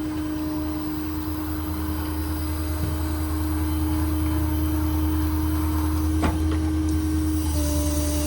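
Ford F-550's 6.7 Power Stroke diesel running with the PTO hydraulic pump engaged to drive the crane: a steady low drone with a steady whine over it that dips slightly in pitch near the end. A single sharp click about six seconds in.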